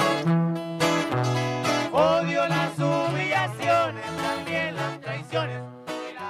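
Sierreño music: a twelve-string requinto guitar plays quick runs over held tuba bass notes, and a man's singing voice comes in about two seconds in.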